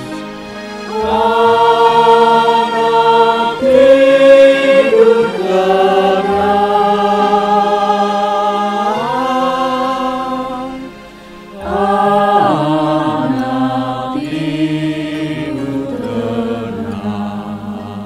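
A small mixed choir of men and women singing in harmony, in long held phrases that glide from note to note. The singing drops away briefly about eleven seconds in, then resumes and fades near the end.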